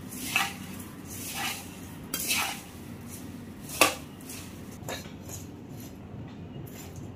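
A spoon scraping and clinking against a bowl as puffed-rice chivda is stirred and mixed, in short irregular strokes with one sharp clink just before the middle.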